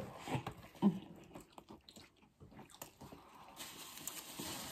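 Close-miked eating sounds: biting and chewing McDonald's food, a series of short, wet mouth noises, the loudest just under a second in.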